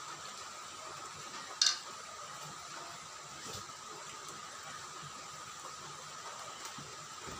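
Soft, faint sounds of rice and fish being mixed by hand on a steel plate over a steady high background whine, with one short sharp click about one and a half seconds in.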